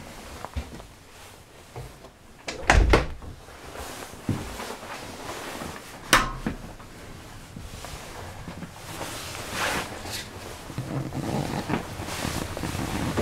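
Household knocks and thuds. The loudest are a quick cluster of knocks about three seconds in and a single sharp click with a short ringing tone about six seconds in, with a low rustling rumble near the end.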